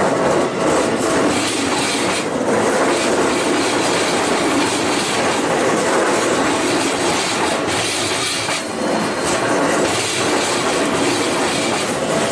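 Keikyu Line train passing over a level crossing: a steady loud rumble of wheels on rail, with clacks at the rail joints.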